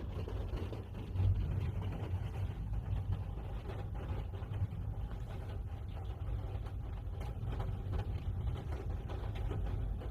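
Steady low rumble inside a parked car, with no sharp events.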